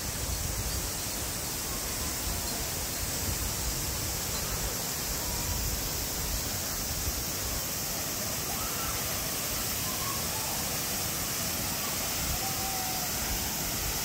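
Steady, even rush of a 75 m waterfall and its stream, heard as a constant hiss.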